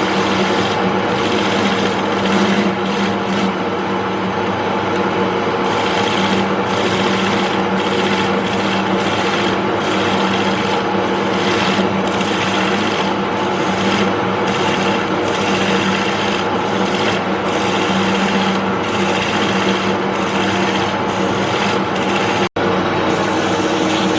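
Wood lathe running steadily with its motor hum, while a tool works the spinning mahogany with a rough, scraping sound that comes and goes. The sound drops out for an instant near the end.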